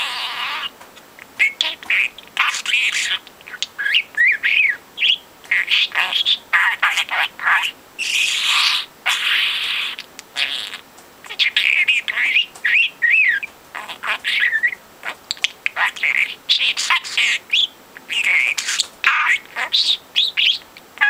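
Budgerigar chattering nonstop: rapid high chirps, warbles and quick rising and falling whistles, mixed with raspy snatches that sound like mimicked speech.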